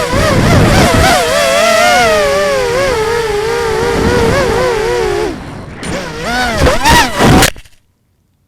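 FPV quadcopter's brushless motors whining, the pitch swinging up and down with the throttle, then a few short surges before the sound cuts off suddenly near the end.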